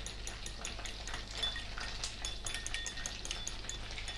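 A spoon stirring sauce in a bowl, clinking against the bowl in quick, uneven ticks with a faint ring.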